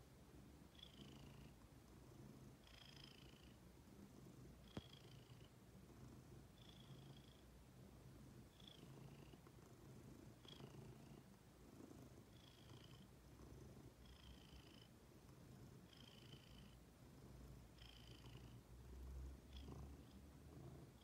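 A domestic ginger cat purring faintly and steadily. A short, high, slightly falling tone recurs about every second and a half over the purr.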